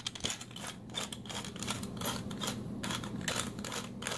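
Hand pepper mill being twisted to grind peppercorns, giving a rapid, uneven run of dry clicks.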